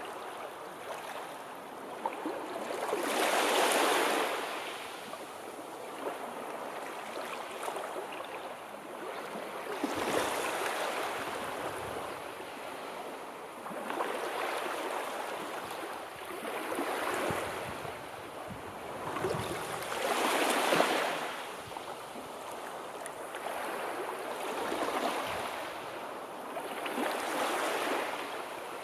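Sea surf: waves washing in one after another every three to six seconds, each a rising and fading hiss. The biggest come about three and twenty seconds in.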